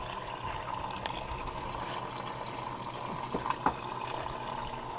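Antifreeze draining in a steady stream from a car radiator's drain, the radiator cap loosened so the coolant comes rushing out. A couple of light clicks about three and a half seconds in.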